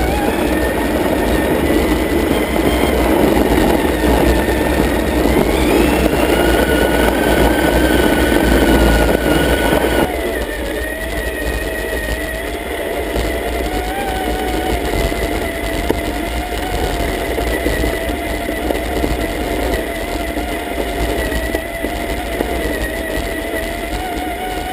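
Electric motor of a Traxxas Summit RC truck whining steadily, its pitch wavering with the throttle and stepping up about six seconds in. A rough, louder noise runs under it and drops away sharply about ten seconds in.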